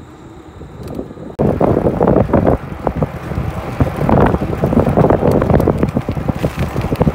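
Wind buffeting a microphone mounted low on a moving bicycle's front fork, mixed with tyre noise on a chip-seal road; it comes in loud and rough about a second and a half in, after quieter steady wind noise.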